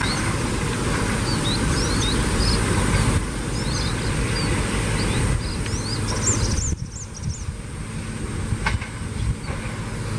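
Low engine and wheel rumble of a KAI orange track-recording railcar approaching along a curving line, with many short high chirps over it. The rumble drops abruptly about two-thirds of the way through.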